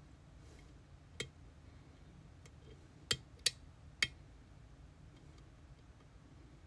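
Four sharp metallic clicks, one about a second in and three close together around the middle, from tools working an EVVA Dual lock cylinder.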